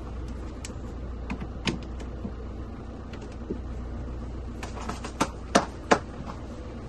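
A few sharp plastic-and-metal clicks and knocks as hands work a snow-covered roof ski rack and the skis in it. The loudest three come close together near the end, over a low steady hum.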